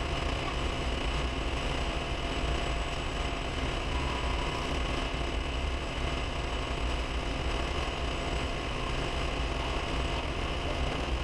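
Clausing metal lathe running steadily, its motor and drive holding a constant note with a few faint steady tones, while a boring bar takes a cut to enlarge a bore in a steel part.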